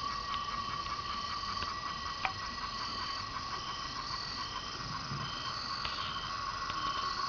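Night chorus of insects: a steady high-pitched hum of cicadas, with other insects calling over it in short, evenly repeated pulses at several higher pitches. One sharp click about two seconds in.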